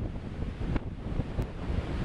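Strong, gusty wind buffeting the microphone: an uneven, rumbling rush that rises and falls from moment to moment.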